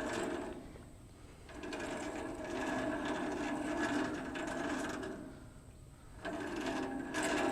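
Timber Tuff band sawmill's blade wheels being turned over, with the band blade running around them in a whirring sound. It comes in three spins with short pauses between, as the newly tensioned blade is checked for tracking on the wheels.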